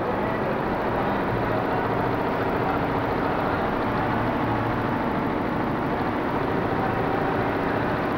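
Computerized embroidery machine with bead and sequin attachments running: a steady, fast mechanical clatter of needle strokes.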